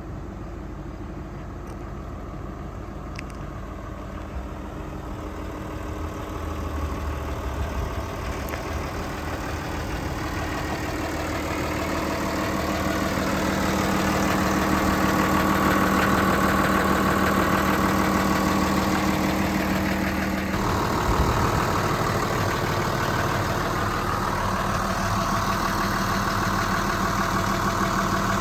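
Caterpillar D5G XL bulldozer's diesel engine running, getting louder over several seconds as it is throttled up, then running steadily at higher revs, with a brief change in pitch about two-thirds of the way through.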